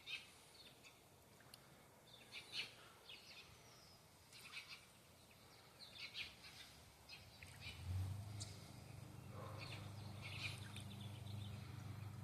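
Small birds chirping faintly in short, repeated calls. About two-thirds of the way in, a steady low hum starts and carries on.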